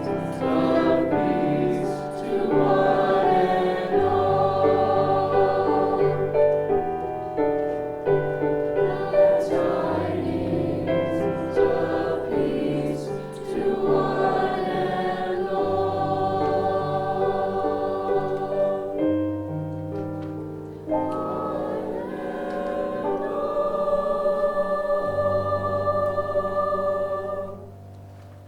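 High school choir singing in harmony, holding long chords over a low line. The last chord fades away just before the end.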